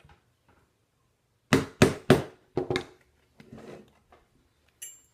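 A mallet striking a rivet setter to set a rivet through leather on a small steel anvil: three hard blows in quick succession, then two lighter taps. A short metallic clink near the end.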